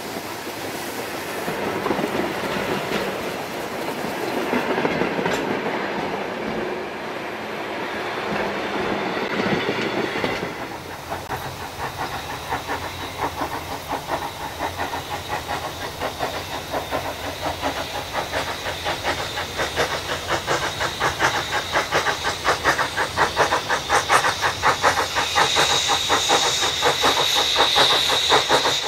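Passenger coaches rolling close past with wheel rumble and clatter on the rails; about ten seconds in the sound changes to the rapid, even exhaust beats of a DSB class F steam tank locomotive working its train, growing steadily louder as it approaches.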